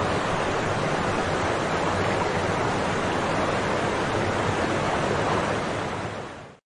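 Steady rushing noise of a waterfall, fading out over the last second.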